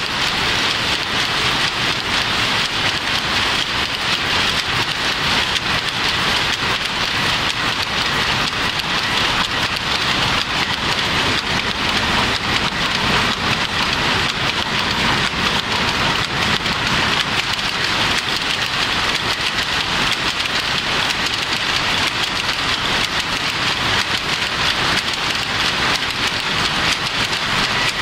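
Shuttle power looms running together in a weaving shed: a loud, dense, steady clatter of countless rapid beats, with no single rhythm standing out.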